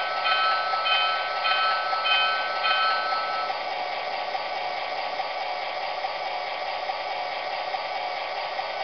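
Electronic locomotive bell from the Lionel GP-38's Trainsounds system, sounding about five more strikes at under two a second and stopping about three seconds in. A steady hissing hum from the model's sound system runs underneath and carries on alone.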